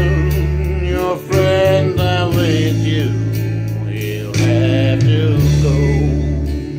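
A man singing a slow country ballad over a backing track, holding long, wavering notes above a steady bass line and guitar.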